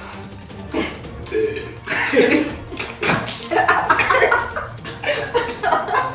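Several people laughing and spluttering while chugging cola from bottles, over background music.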